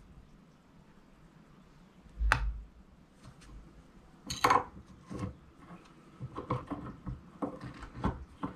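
Small metal clicks and taps of a wire whip finish tool being worked around the hook of a fly in a fly-tying vise. There are two sharper clicks about two seconds apart, then a run of light ticks near the end.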